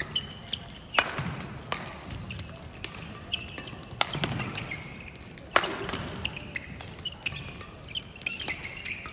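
Badminton doubles rally: sharp cracks of rackets hitting the shuttlecock at irregular intervals, the hardest about a second in and again about five and a half seconds in. Short high squeaks and shuffling come from players' shoes on the court mat.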